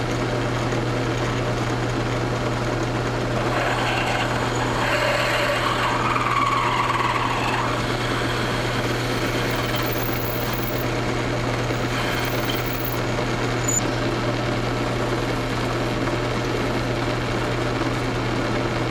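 Round-column drilling machine running steadily, with a constant low hum, as a twist drill bores into a square aluminium block and throws off chips.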